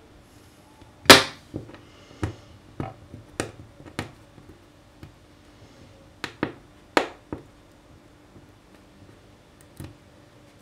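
Hardened melted plastic being scraped and picked off a hob, cracking and clicking as flakes snap loose. About a dozen sharp, irregular clicks, the loudest about a second in.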